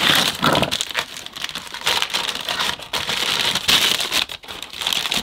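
Paper wrapping and cardboard packaging inserts crinkling and rustling in uneven bursts as they are handled and a paper-wrapped vacuum wand is lifted out of its box.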